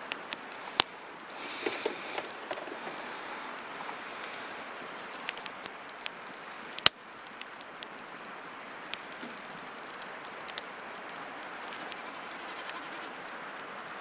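Wood campfire crackling, with sharp pops from the burning wood scattered over a steady hiss; the loudest pop comes about seven seconds in.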